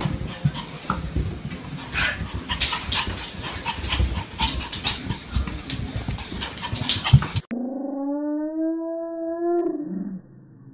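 Repeated knocks and scuffs from a small dog on carpeted stairs, the sharpest just before the sound cuts off. Then a single dog howl of about two seconds, rising and then falling in pitch.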